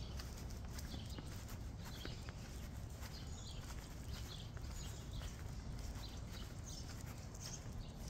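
Footsteps on a concrete sidewalk, a run of light ticks over a steady low rumble, with faint chirps of small birds now and then.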